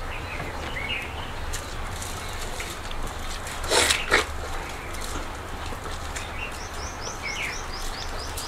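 Watermelon eating: juicy bites into fresh watermelon slices, the loudest a pair of wet crunching bites about four seconds in. Small birds chirp in the background, with a quick run of high chirps near the end, over a steady low hum.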